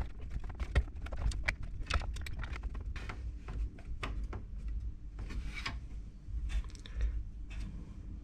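Irregular small clicks, taps and scrapes of hands working plastic and metal parts inside an open desktop computer case, fitting fan cables and parts into place.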